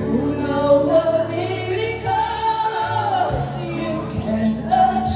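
A woman singing a slow ballad over a backing track, holding and bending long notes.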